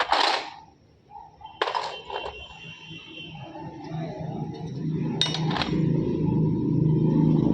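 Sharp metal clinks of truck gearbox parts being handled, three times. From about halfway a low, steady mechanical hum builds up and becomes the loudest sound.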